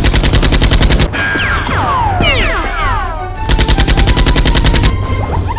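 Two bursts of rapid automatic gunfire sound effect, with falling whistling tones between the bursts.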